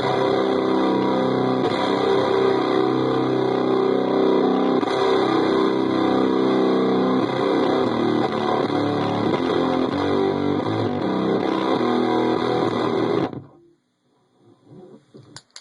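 Electric guitar played through a breadboarded prototype fuzz pedal, the Dropout Fuzz, giving a heavily distorted tone of sustained chords and notes. It cuts off abruptly about 13 seconds in, leaving near silence with a few faint noises.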